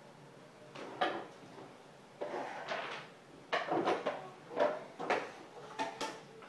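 A run of irregular knocks, bumps and rustles from a box and toys being handled and set down on a wooden floor.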